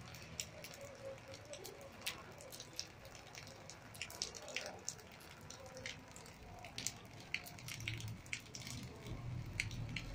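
Rain dripping onto a wet concrete rooftop: scattered, irregular sharp ticks of single drops over a faint steady hiss.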